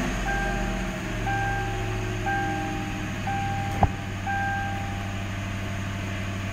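Ford Crown Victoria's dashboard warning chime beeping five times, about once a second, over the low steady hum of its V8 idling just after starting. A single sharp click a little under four seconds in.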